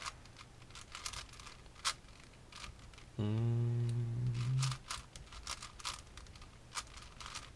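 Plastic clicks and clacks of a ShengShou 6x6 Rubik's cube being turned by hand, in irregular quick bursts. A drawn-out spoken "and" about three seconds in.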